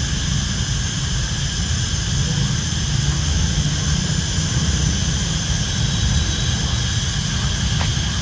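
Wind buffeting the microphone outdoors: a steady, flickering low rumble with a constant hiss above it.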